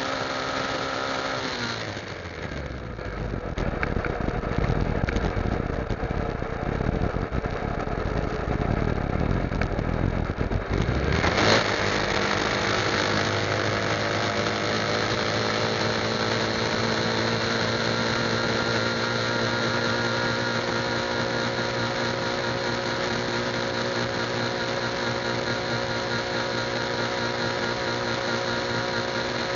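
Motorcycle engine running steadily at highway speed. About two seconds in its pitch drops, and rough wind noise on the microphone covers it for several seconds. Then the engine hum comes back suddenly, rises a little and holds steady.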